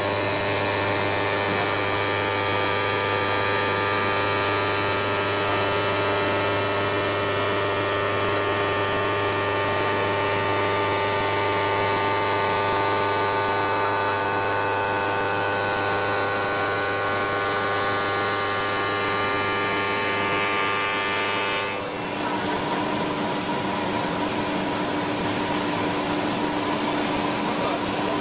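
CNC stone-cutting router running steadily, a hum with a stack of many steady whining tones. About 22 s in it changes abruptly, dropping most of the tones and turning into a rougher, noisier hiss.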